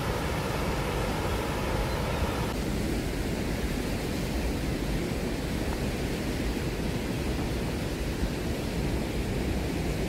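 Steady rushing noise of flowing water, its tone changing slightly about two and a half seconds in.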